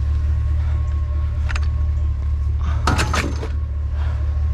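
Steady low hum of a running vehicle engine, with a short knock about a second and a half in and a brief clatter of knocks around three seconds in.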